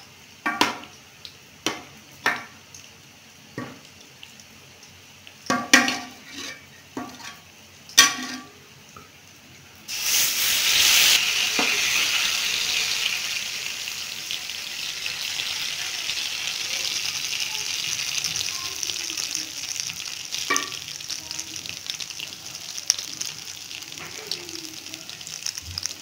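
Metal ladle knocking and scraping against an aluminium pot several times. About ten seconds in, a loud sizzle starts suddenly: pakoras frying in hot oil in an iron karahi. It goes on steadily and eases a little by the end.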